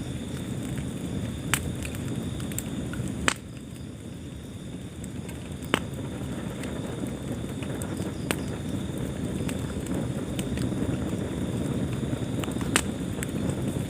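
Wood fire burning in a fireplace: a steady low rustle of flames with sharp crackles and pops every couple of seconds, the loudest about three seconds in.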